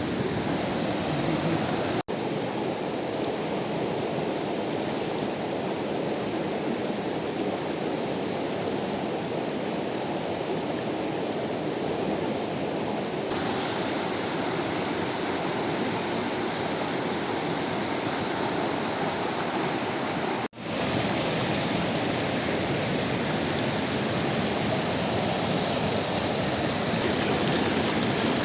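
Fast-flowing river water rushing steadily, with the sound cutting out for an instant twice, about two seconds in and about two-thirds of the way through.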